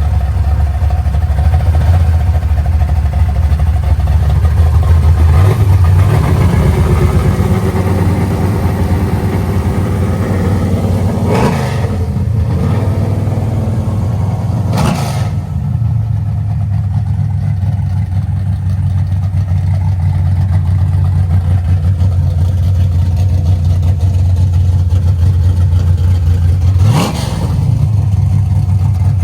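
G-body Chevrolet Malibu's engine running through its exhaust, its mufflers freshly re-hung, settling to a steady idle with a few short revs in the middle and one more near the end.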